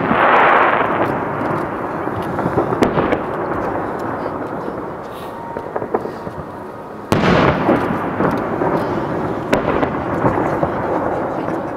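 Aerial fireworks shells bursting: a loud boom right at the start and another about seven seconds in, each trailing off in a long echoing rumble, with scattered crackling pops in between.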